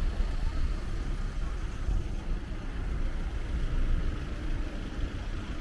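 Steady road traffic: motor vehicle engines running.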